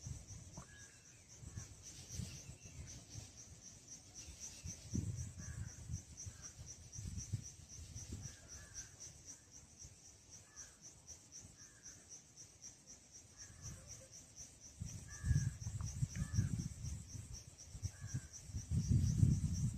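Insect chirping, most likely a cricket, in a steady, evenly pulsed high trill. Faint short calls repeat now and then, and low thumps and rumbles, likely microphone handling, are loudest near the end.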